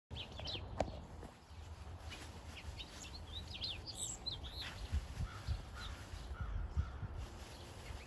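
Small songbirds chirping in a quick string of short, high notes, with a few lower notes in the middle, over a low rumble.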